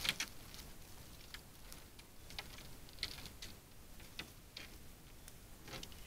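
Faint, scattered crackles and clicks of dry leaf litter and twigs under a short-beaked echidna as it walks away from a water bowl, irregularly spaced, with the sharpest click right at the start.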